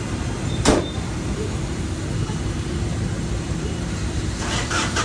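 Crossfire RM250 motorcycle engine running steadily under a low rumble, with one sharp knock under a second in.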